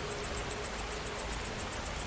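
Steady rain falling, an even hiss, with an insect chirping in a fast, even, high-pitched pulse of about seven chirps a second.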